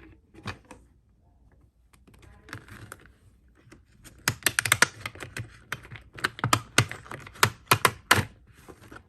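Plastic wrapping being picked at and pulled off a new planner: fairly quiet at first, then a quick run of sharp crackles and clicks from about four seconds in.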